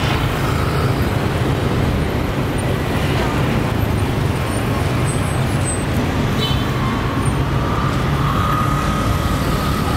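Steady road traffic noise with vehicle engines running by.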